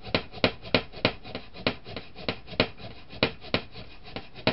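Sandpaper rubbed by hand over a cast piece in quick back-and-forth strokes, about three rasping scrapes a second with a steady rhythm.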